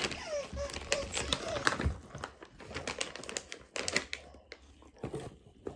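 Resealable plastic dog-treat pouch being opened and rummaged in by hand: quick crinkling and clicking rustles, thinning out over the last couple of seconds.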